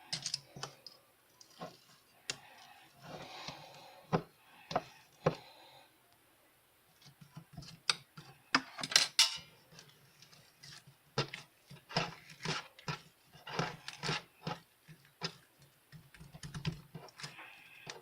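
Irregular taps and clicks in quick runs, with a pause about six to seven seconds in.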